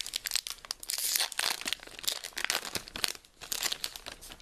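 Foil wrapper of a Pokémon TCG booster pack being torn open and crinkled, a dense irregular crackle that thins out near the end.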